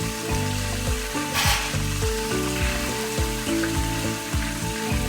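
Chicken pieces frying in hot peanut and vegetable oil in a skillet, a steady sizzle with a brief louder hiss about a second and a half in. Background music plays underneath.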